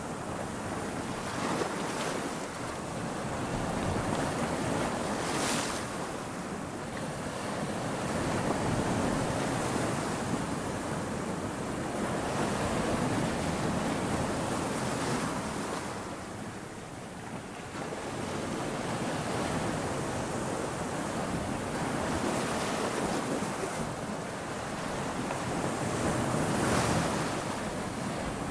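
Steady rushing water noise like surf, swelling and fading slowly every few seconds.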